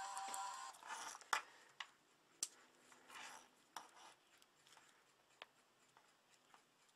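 Faint clicks, taps and a short rustle from small plastic parts being handled: headphones and their cables being fiddled with.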